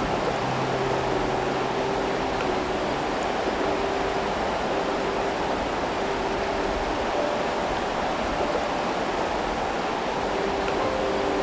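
Rushing floodwater: a steady, even rush of fast-moving water.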